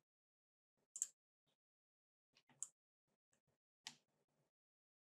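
Near silence broken by a handful of faint, separate clicks from computer mouse and keyboard use.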